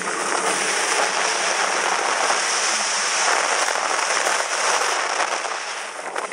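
A car's tyres crackling and crunching over packed snow and ice as it drives, with the engine's low hum underneath. The noise eases briefly near the end.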